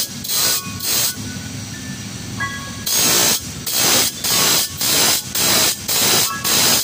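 Bench grinder's thin abrasive disc grinding the teeth of a handsaw to sharpen it: a hissing grind in short strokes about twice a second. The strokes pause for about two seconds early on, leaving a quieter steady run of the spinning grinder.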